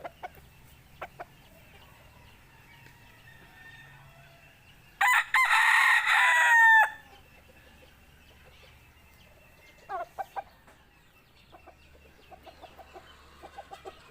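A rooster crows once, a loud call of about two seconds ending in a falling note, about five seconds in. Later a chicken clucks in short runs of quick notes.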